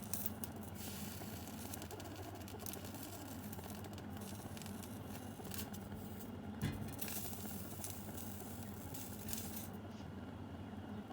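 A piece of red pumpkin roasting on a wire net over a stove flame: a steady low burner hiss, with a few brief crackles now and then.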